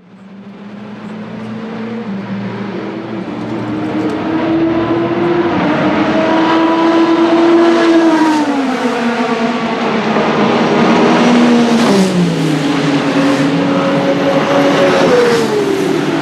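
WEC Hypercar prototype race cars' engines running on track, growing louder over the first few seconds. The engine note climbs steadily and then drops sharply at downshifts about eight and twelve seconds in.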